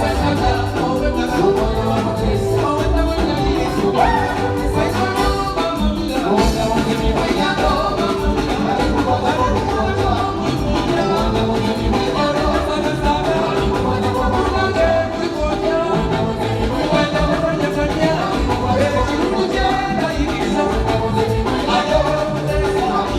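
A live band playing an upbeat song with a lead singer over a steady beat.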